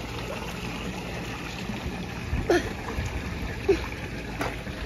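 Pool water splashing and lapping as a small child paddles through it: a steady wash of water with a few small splashes.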